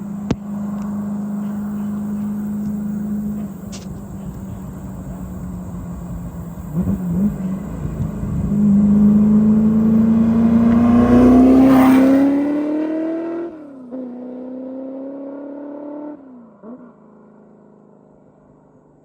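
Superformance GT40 MkII's Roush 427R V8 running steadily, then accelerating hard with a long rising pitch as the car passes, loudest a little past halfway. The pitch then drops twice as it shifts up, and the sound fades away.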